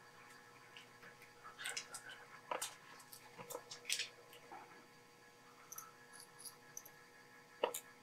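Faint, irregular clicks and crackles from hand-soldering the pins of a surface-mount chip with a fine-tipped soldering iron and solder wire, over a faint steady hum.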